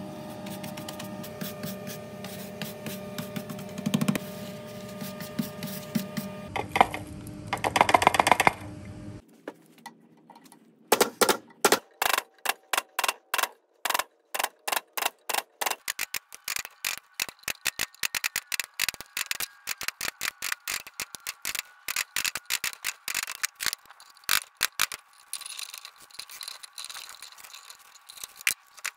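Hand cutters snipping through the copper windings of an electric motor stator, a run of sharp snips about two or three a second starting about eleven seconds in. Before that there is a steady hum with several tones that gets loud about eight seconds in.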